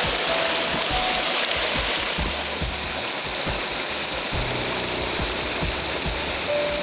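Steady rush of flowing creek water, with a few short held tones about half a second in and again near the end.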